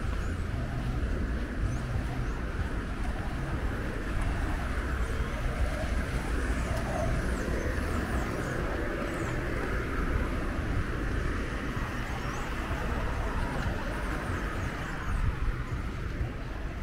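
Outdoor city ambience: a steady low rumble of wind and distant traffic, with faint voices of passers-by and many short, high bird chirps.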